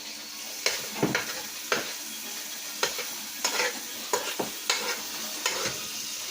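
Food sizzling in a frying pan while a utensil stirs it, scraping and knocking against the pan in repeated irregular strokes from under a second in.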